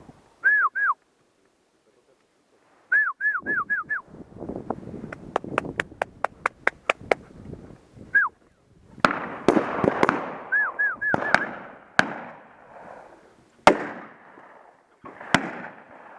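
Shotgun shots at a driven partridge shoot: several sharp reports spread through the second half, some fainter and more distant than others. Short falling whistle notes come in small groups, twice near the start and again among the shots, and a quick even run of clicks sounds about five seconds in.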